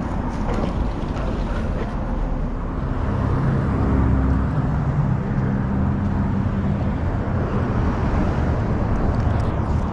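Road traffic on the bridge: a steady low rumble, with one vehicle passing and getting loudest about four seconds in.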